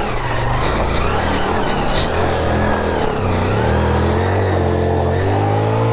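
Motorcycle engine revving hard and unevenly, its pitch rising and falling again and again, as the bike struggles for grip climbing a slippery mud track.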